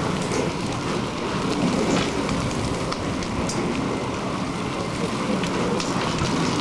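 A bunch of racing bicycles passing close by on a gravel lane: tyres on the loose surface make a steady rushing hiss, with a few faint clicks.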